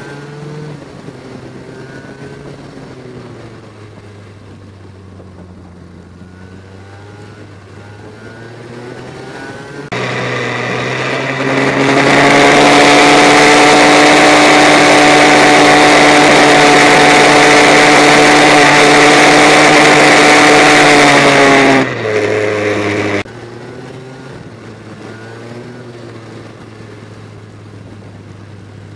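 Go-kart engine heard on board, its note rising and falling as the kart works through the corners. From about ten seconds in, a much louder kart engine holds one steady high-revving note under a strong rushing hiss for about twelve seconds. Then the sound cuts back to the quieter, varying engine note.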